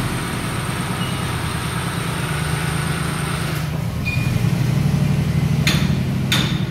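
The ZAZ-968M Zaporozhets's rear-mounted air-cooled V4 engine running at low revs as the car creeps forward, a little louder from about four seconds in. Two short clicks come near the end.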